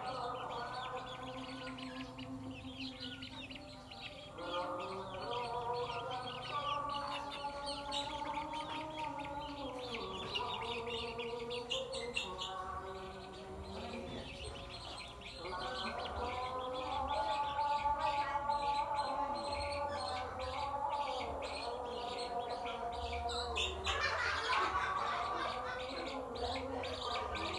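Baby chicks peeping continuously in quick high chirps, with a lower, steadier sound of several held notes that change pitch every few seconds underneath.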